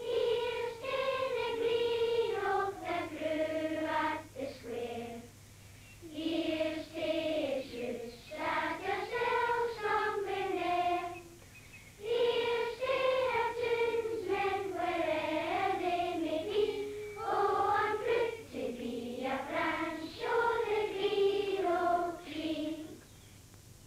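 A boy's voice singing solo and unaccompanied, in phrases of a few seconds with short pauses between them, over a faint steady hum.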